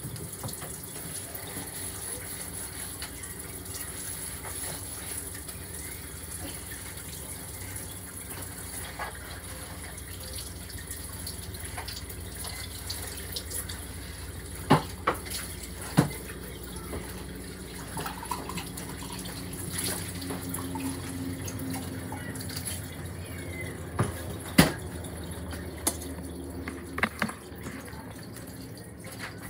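Steady kitchen hiss with several sharp knocks and clicks: two about halfway through and a cluster near the end.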